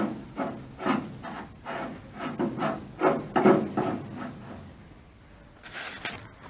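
Rubbing and scraping handling sounds, a quick series of uneven strokes about two or three a second that die away about four seconds in, then one short sharper scrape near the end.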